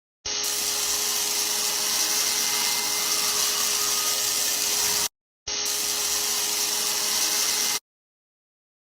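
Promark household vacuum cleaner motor running with a steady high hiss and a steady hum beneath it, in two stretches, the first about five seconds and the second about two, each starting and stopping abruptly.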